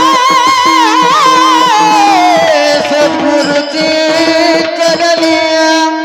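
Devotional Marathi bhajan singing in the kirtan style: a male voice holds a high, wavering note, then slides down in pitch about two seconds in. A steady drone and light percussion accompany it.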